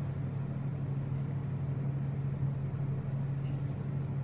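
Steady low hum, even in level, with no distinct knocks or clicks.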